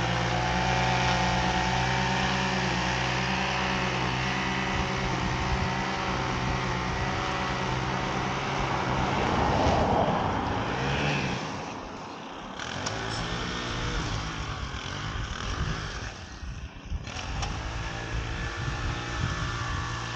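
Small engine of lawn equipment running steadily. Its sound drops and thins out about halfway through, then picks up again at a lower level.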